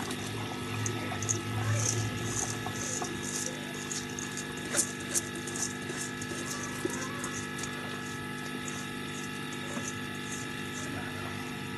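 Uncooked rice poured into a pot of boiling, spiced potato water, with light crackling and pattering for the first few seconds over a steady hum, then the water carries on boiling with a single sharp tick about five seconds in.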